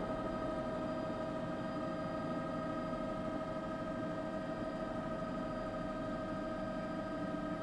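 Steady vehicle running noise with a constant whine, unchanging throughout, with no crack or bang.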